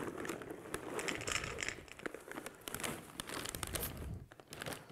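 Plastic bag of dry dog food crinkling as kibble is poured from it into a stainless steel bowl, with many small clicks and rattles of the pellets against the metal.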